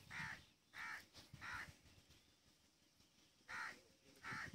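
A crow cawing five times in short harsh calls: three in quick succession, a pause, then two more near the end.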